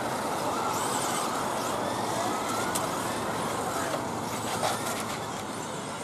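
Kyosho Fazer Mk2 1/10-scale electric RC touring cars racing on asphalt: a steady high motor whine that glides up and down with the throttle, over tyre noise.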